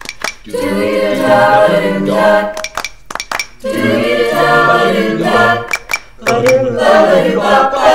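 A cappella vocal group singing a wordless harmony passage in three phrases, with sharp hand claps in the gaps between phrases.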